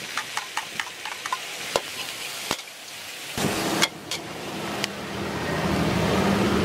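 A metal spatula clinks and scrapes against a steel wok as vegetables are stir-fried, with sizzling. There is a quick run of light clicks at first. About three and a half seconds in, a steady rushing noise with a low hum comes in and grows louder.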